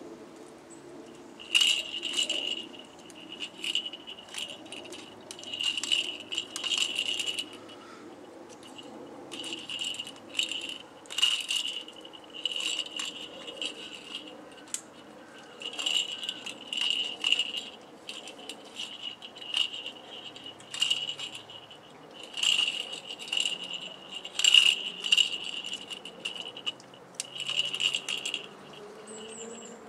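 Domestic cat chewing a mouse, crunching through its bones in short crackly bursts with brief pauses between.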